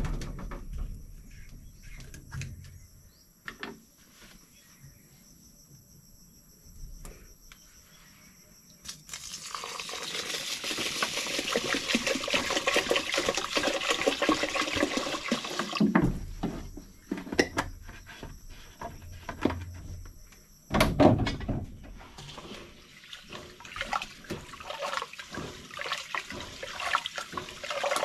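Water pouring and splashing hard for about seven seconds, starting about nine seconds in and cutting off suddenly. A thump follows, then lighter, uneven trickling and pattering.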